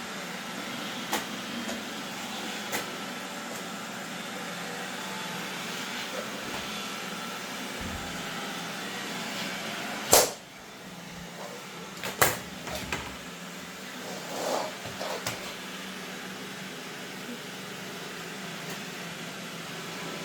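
Roomba robot vacuum running with a steady motor hum, with a few sharp knocks and clicks, the loudest about halfway through.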